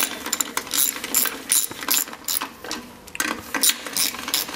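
Hand ratchet on a long socket extension clicking in quick bursts, about three a second, with a short pause about three seconds in, as it runs up the 10 mm nuts on the strainer plate of an air-cooled VW Type 1 deep sump.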